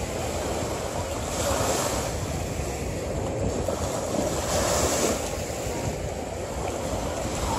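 Steady rushing noise, like wind or surf, that swells and eases every couple of seconds.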